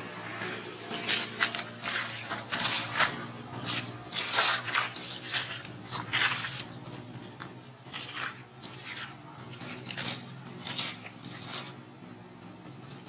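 Dry leaves crackling and rustling in irregular bursts as macaques move and forage in the leaf litter, busiest in the first half and thinning out toward the end.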